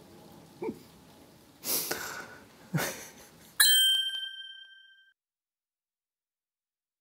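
A few short, quieter sounds, then a bright bell-like ding about three and a half seconds in that rings out for about a second and a half before dead silence. The ding is the chime of a subscribe-and-notification-bell end-screen animation.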